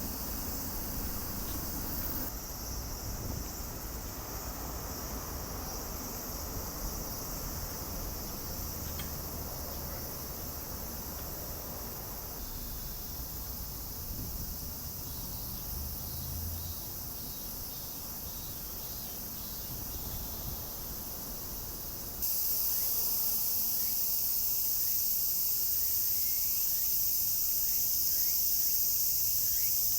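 A steady high-pitched chorus of insects trilling, jumping abruptly louder about 22 seconds in.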